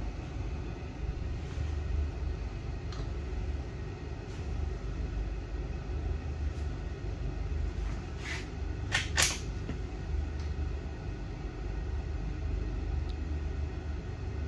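Steady low hum of an indoor shooting range. A few light clicks and knocks come from a rifle being handled in its mechanical shooting rest, the clearest a quick pair about nine seconds in.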